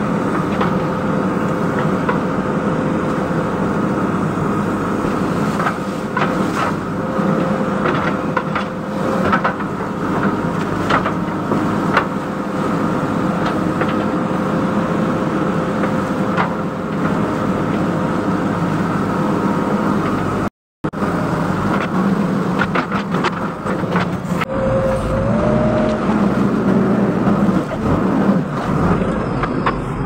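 JCB backhoe loader's engine running steadily under load as the backhoe bucket digs and drags brush, roots and fallen trunks. Scattered knocks and cracks of wood and debris sound over the drone, and the engine note rises briefly near the end.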